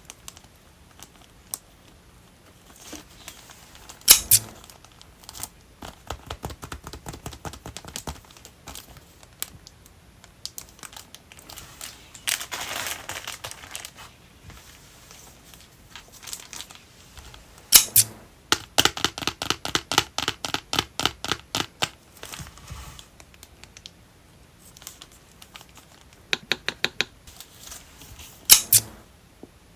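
Hands handling and unpacking purchased goods: packaging crinkling and tearing, with sharp taps and clicks, including a quick run of clicks about two-thirds of the way through.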